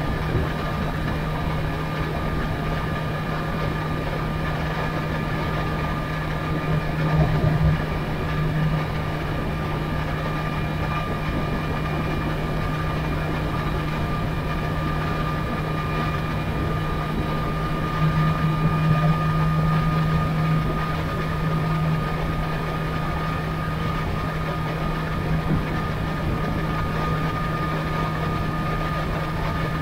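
Sport motorcycle engine holding a steady cruise in sixth gear at about 73 mph, with wind and road rush around it. It swells a little louder briefly about seven seconds in and again for a few seconds past the middle.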